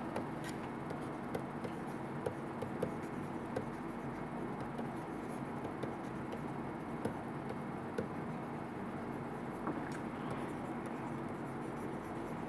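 Steady low hum and hiss of room and recording noise, with faint scattered clicks of a stylus tapping on a tablet screen during handwriting.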